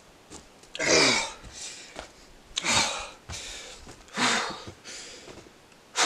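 A person breathing hard and forcefully, four loud, hissy breaths about a second and a half apart, each followed by a softer one.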